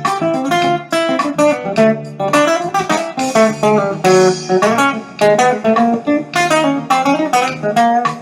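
Background music: a jazz guitar piece played with quick plucked notes.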